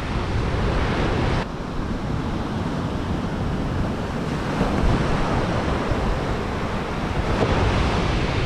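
Strong wind buffeting the microphone over breaking surf, a dense rumbling rush that drops abruptly about a second and a half in and rises again near the end.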